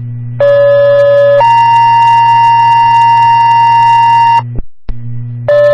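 Two-tone sequential fire-pager alert tones over scanner radio: a lower steady tone for about a second steps up to a higher tone held for about three seconds, with a steady low hum under both. The signal drops out briefly with a click, and a second tone sequence starts near the end, alerting fire stations to a dispatch.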